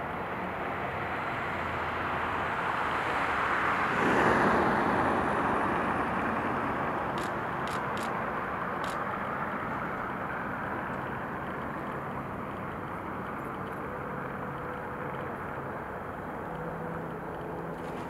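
A car passing on the road, its tyre and engine noise swelling to a peak about four seconds in and then slowly fading away.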